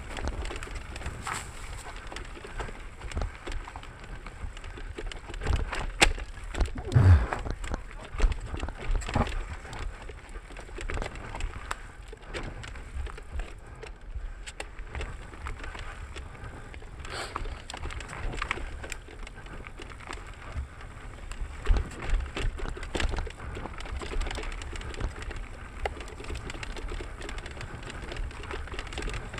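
Mountain bike descending a dirt forest trail: tyres crackling over dirt, roots and leaf litter, with a steady low rumble and the bike rattling and knocking over bumps. The hardest knocks come about six to seven seconds in.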